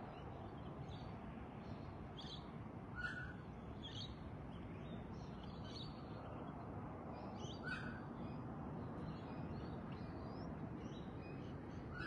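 Dawn chorus of several birds: many short high chirps and calls, with two louder calls about three and eight seconds in, over a steady low rumble.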